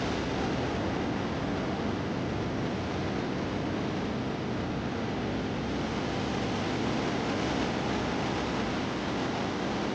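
Steady rushing of sea surf and wind, with no separate events.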